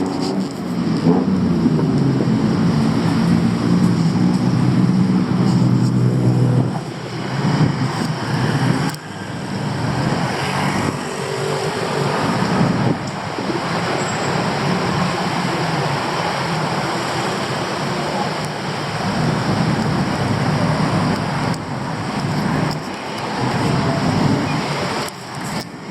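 Street traffic noise from passing cars and motor vehicles. For the first six or seven seconds a nearby vehicle's engine runs loudly, then the general traffic continues without a break.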